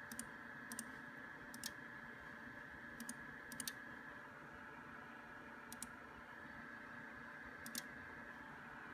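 Computer mouse button clicking about seven times at irregular spacing, each click a quick press-and-release, over a steady faint whine.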